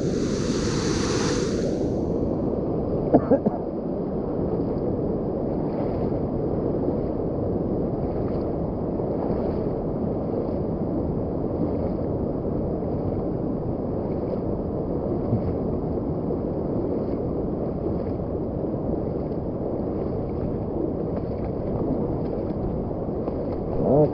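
Steady rush of flowing river water at a dam, with a brief brighter hiss at the start and a couple of sharp knocks about three seconds in.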